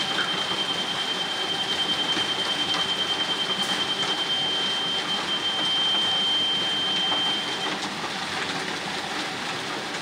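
Ready-mix concrete truck running while wet concrete pours down its chute: a steady, noisy din with a thin, high, steady whine that stops about eight seconds in.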